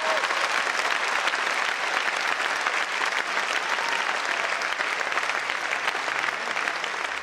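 Theatre audience applauding after a ballet number: dense, even clapping that begins to thin and fade near the end.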